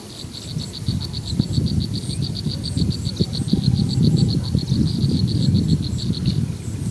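A high, rapidly pulsing animal call, about seven pulses a second, that stops shortly before the end. Under it runs a louder, irregular low rumbling noise.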